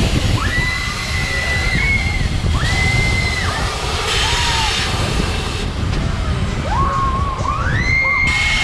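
Wind rushing over the microphone on a spinning Apollo swing carousel, with riders letting out high drawn-out screams that rise, hold their pitch, and fall several times.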